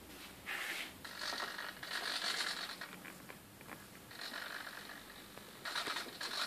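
Small servo motors of a pan-tilt camera mount whirring in about five short buzzy bursts as the camera swivels back and forth.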